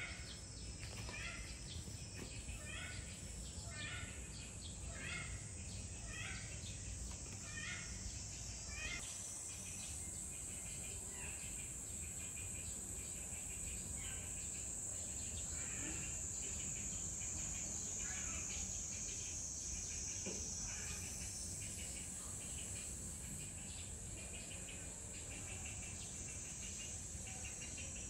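Summer outdoor ambience: insects keep up a steady high-pitched drone. Over it a bird calls again and again, about once every three-quarters of a second for the first nine seconds, then more loosely.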